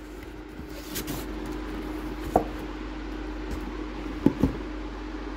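A few light knocks and taps from a cardboard firework box being handled, a close pair of them near the end, over a steady low hum.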